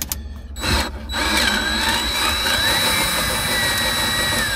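A power tool's motor runs steadily for about five seconds from about a second in, with a thin high whine that wavers in pitch as it works; a short knock comes just before it starts.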